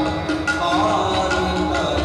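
Sikh kirtan: a man singing a hymn with a bending melody over steady held harmonium tones, with tabla strokes keeping the rhythm.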